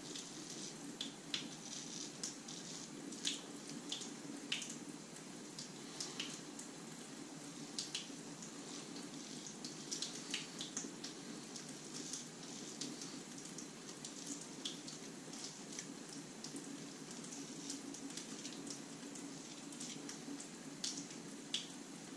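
Dovo Best Quality 6/8 straight razor scraping through lathered beard stubble in short, irregular scratchy strokes, about one a second. A low steady hum runs underneath.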